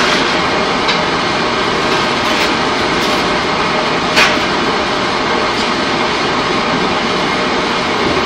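Steady loud din of pipe-coating line machinery, pipe conveyor and rollers running, with a faint steady tone under the noise. A sharp metallic clank stands out about four seconds in.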